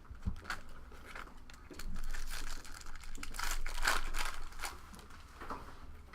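Trading-card pack wrapper crinkling and tearing as a pack is opened, with cards rustling, in a run of short rustles that are loudest about two and four seconds in.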